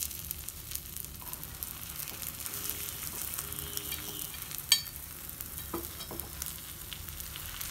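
Egg paniyaram frying in oil in the cups of a paniyaram pan: a steady sizzle with fine crackling, while a spoon scrapes in the cups to turn the cakes over. One sharp click, the loudest sound, comes a little under five seconds in.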